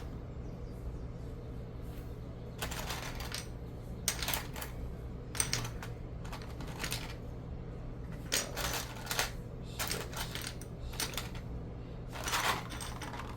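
Small plastic Lego pieces rattling and clicking as they are handled and sorted, in short clatters every second or two over a low steady hum.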